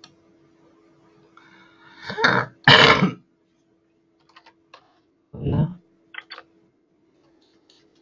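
Throat noises from a person at the microphone: two loud ones in quick succession about two seconds in and another about five and a half seconds in, like throat clearing. Between and after them come a few light computer keyboard clicks as a short word is typed.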